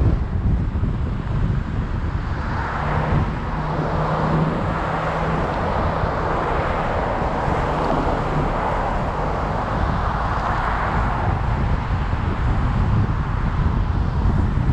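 Road noise from a car driving along a city street: a steady low rumble of tyres and wind on the microphone. A louder rush of traffic noise swells from about two seconds in and fades near the end.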